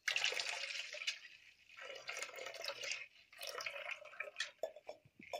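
Milk poured from a steel cup through a plastic tea strainer into an aluminium pot, splashing in three pours with brief pauses, then a few drips near the end.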